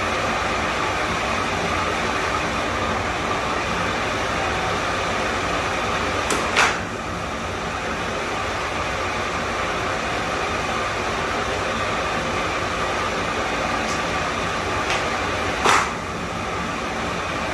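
A steady, loud machine drone runs throughout, broken twice by a short, sharper noise, once about six and a half seconds in and once near the end.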